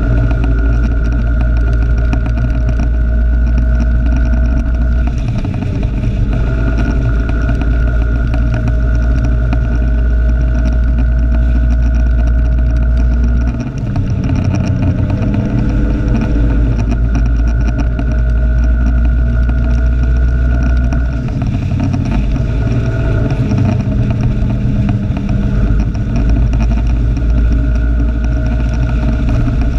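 Vehicle engine running steadily while under way, picked up by a camera clipped to the mirror, with a heavy low rumble that falls away briefly three times, about six, fourteen and twenty-two seconds in.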